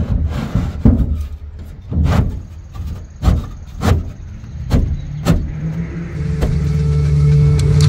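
Thick Coosa board transom panel knocking against the aluminum jon boat's transom frame as it is worked down into a snug slot: about six sharp knocks, roughly one a second. Near the end a steady low engine hum comes up.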